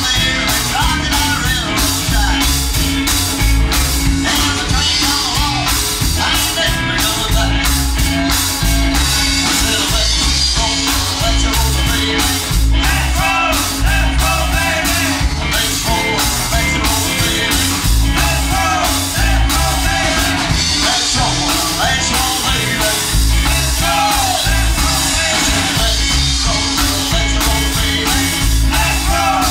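Rockabilly-style rock and roll song with a singer over a steady, driving drum beat.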